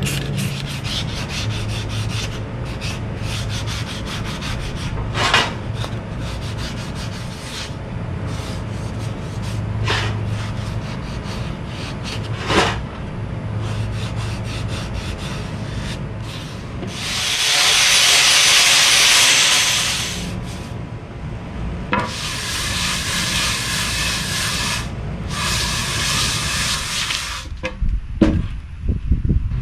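Hand scraping and rubbing on metal workshop parts, with frequent short strokes over a low hum. About two-thirds through, three long hisses come in, the first one loudest, then a few knocks near the end.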